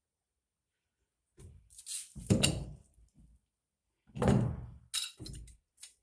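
Two bursts of thuds and clunks, each lasting about a second and a half, from a pipe wrench and plastic tank connector fittings being worked against a hollow black plastic water tank.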